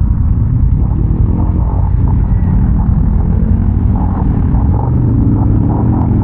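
Can-Am Renegade ATV's V-twin engine running steadily during a ride, its pitch shifting slightly about five seconds in.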